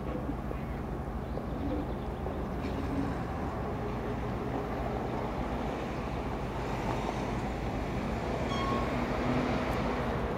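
Diesel engine of a TEP70 passenger locomotive running as the locomotive moves slowly along the track: a steady low drone. A brief high chirp sounds near the end.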